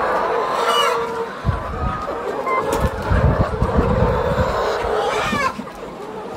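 A flock of laying hens clucking and squawking together, with a few sharper calls standing out. Dull low thuds come through in the middle.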